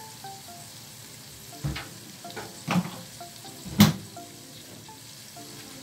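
Pork and squash in sauce sizzling steadily in a lidded frying pan. Three sharper pops cut through the sizzle, the loudest about four seconds in.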